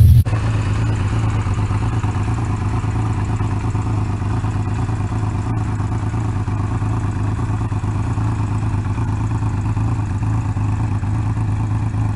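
Kawasaki KZ1300 inline-six motorcycle engine running at a steady speed through its exhaust, with no revving.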